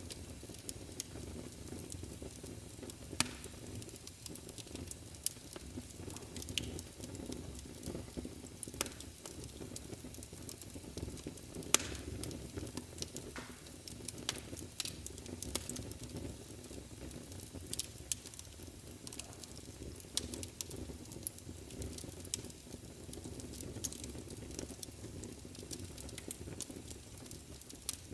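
Fire burning in a fireplace: a steady low rumble of flames with scattered sharp crackles and pops, two of them louder, about three seconds in and near the middle.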